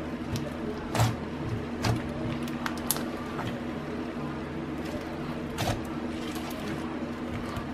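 Black butter slime, white slime with black Daiso soft clay being kneaded in, squelching and stretching under the fingers, with a few sharp sticky pops and crackles, the loudest about a second and two seconds in. A steady low hum lies underneath.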